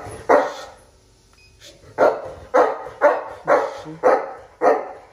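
A dog barking: one bark just after the start, then after a short pause a steady run of barks about two a second.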